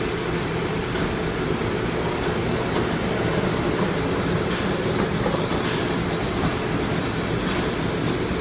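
Steady mechanical running noise of workshop machinery: a continuous rumble and hum that holds even throughout, with no strikes or starts.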